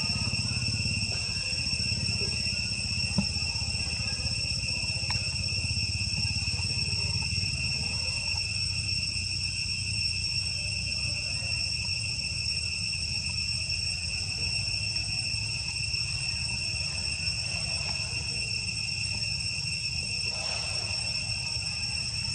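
Insects calling in a steady, unbroken shrill chorus that holds one high pitch throughout, over a low steady rumble.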